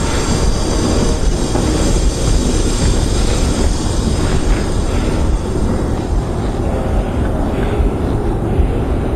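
Skis sliding fast down the metal divider between escalators, a loud, steady rumbling scrape with no let-up.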